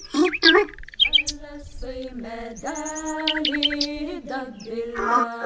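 A brief burst of voice-like babble, then birds chirping and tweeting in quick high calls over a long held sung note.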